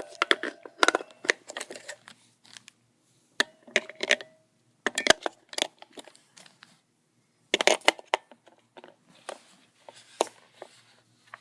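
Batteries and plastic parts of a weather radio's battery compartment being handled: repeated sharp clicks, taps and rattles in several short clusters as the batteries are pushed in and the parts snapped into place.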